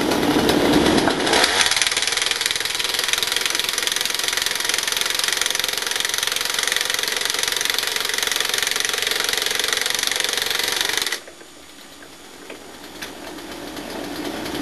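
Petrol-engined coach screwer running hard as it drives a chair screw down through a rail chair into a sleeper. About eleven seconds in the engine drops suddenly to a much quieter idle, then picks up again near the end.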